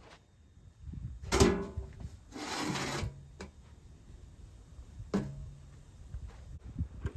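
A metal drive-on car ramp set down on packed dirt with a ringing clank, then scraped along the ground into place against the truck's front tyre. A second, shorter clank follows a few seconds later.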